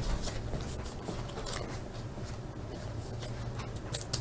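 Trading cards being handled, giving light rustling and small scattered clicks as the card stock slides and taps together, over a low steady hum.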